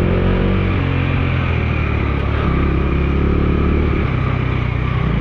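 Bajaj Dominar 250's single-cylinder engine running at steady road speed, its note holding level, with rushing wind and road noise.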